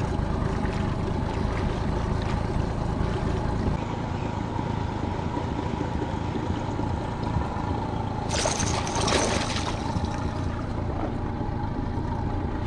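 Honda 30 hp four-stroke outboard running steadily at trolling speed, its low rumble easing off about four seconds in. Near the middle, a second and a half of splashing as a hooked pike thrashes at the surface beside the boat.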